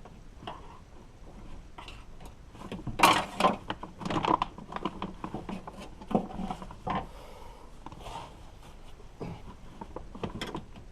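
Irregular clicks and knocks of hand tools and metal parts being worked on a car door during lock actuator removal, busiest from about three to seven seconds in, with a few more near the end.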